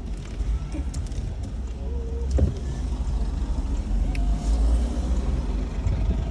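Low steady rumble of a car in motion, with a few faint clicks.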